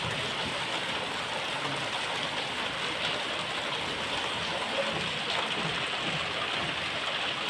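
Heavy rain falling, a steady, even hiss of water.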